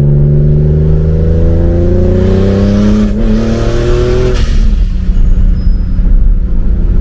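Turbocharged BMW E36's M52 inline-six accelerating at full throttle under boost, heard from inside the cabin: the revs climb steadily for about four seconds, then the throttle is lifted suddenly and the engine drops back to a lower, steadier run. It is a boost-test pull on an 8-pound wastegate spring, reaching about 11 psi.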